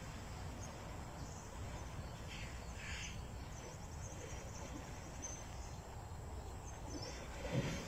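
Steady low outdoor rumble with a few short bird chirps, mostly around three seconds in, and a brief dull thump near the end.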